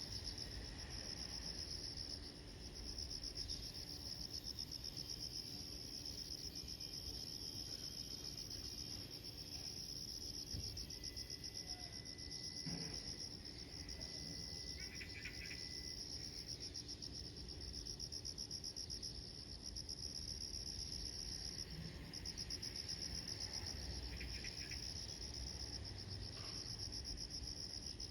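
Insects trilling in a steady, high, finely pulsing chorus, with a couple of short chirps from another caller partway through.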